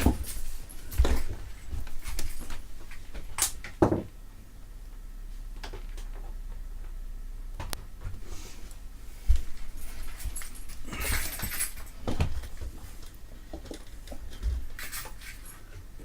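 Tools and parts being handled on a workbench: scattered clicks, knocks and rattles, a sharp knock about nine seconds in, and short scraping rustles near the end.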